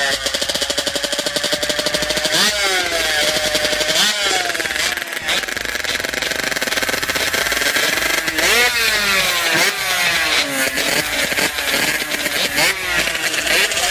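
Two-stroke drag bike engines revving at the start line: one held at high revs for about two seconds, then blipped hard again and again, each rev a quick rise and fall in pitch. Near the end the revs begin to climb steadily as the launch begins.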